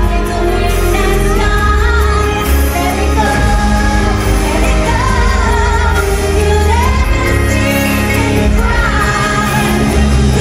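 Stage-show music with singing, loud and continuous.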